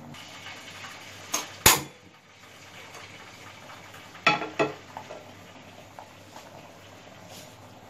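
Two sharp knocks about a second and a half in, then two metal clanks a little after four seconds in as a flat iron tawa is set down on a gas stove burner's grate.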